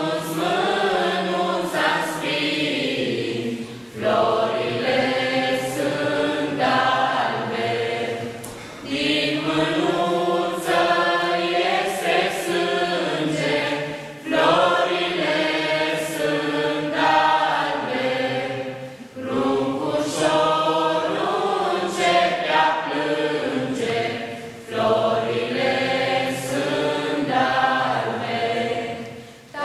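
Small mixed group of young voices singing a Romanian Christmas carol (colind) together, in phrases of about five seconds with brief breaks between them.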